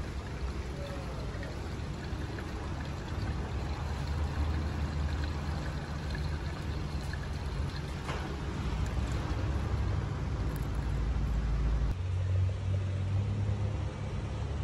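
Blue windscreen washer fluid pouring from a plastic bottle into a car's washer reservoir, over a steady low hum.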